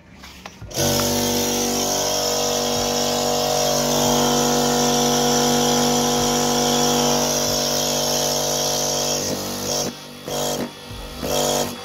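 Old piston air compressor starting up about a second in and running steadily, a motor hum with a hiss over it, breaking off briefly a few times near the end. It is not drawing in air, which the repairman puts down to the valves.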